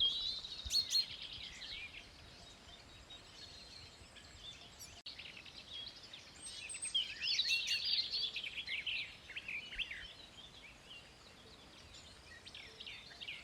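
Songbirds singing in quick chirping phrases, in two spells at the start and again from about six to ten seconds in, over a faint steady background hiss.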